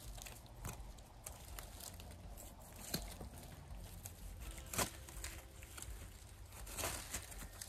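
Faint rustling and soft tearing as a doe's entrails are pulled out of the body cavity by hand during field dressing, with dry leaves crackling under it and a few sharper clicks about three and five seconds in.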